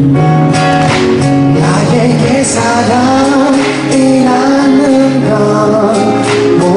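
Live amplified music: acoustic guitar accompaniment with a man singing into a microphone.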